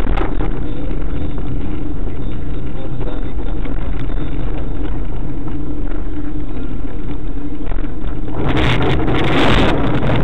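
Steady engine hum and tyre noise heard inside a car's cabin through a dashcam microphone. Near the end a louder, rough rushing noise swells for about two seconds.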